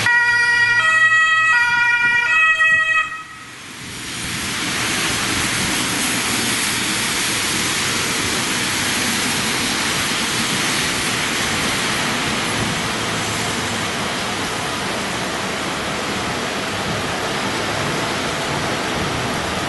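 A German two-tone emergency vehicle siren (Martinshorn) alternates between two pitches about every 0.8 s, four notes in all, and cuts off suddenly about three seconds in. After that comes a steady hiss of rain and tyres on the wet road as the convoy passes.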